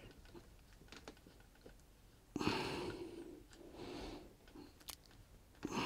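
Quiet, with a person breathing out a few times and a small click near the end.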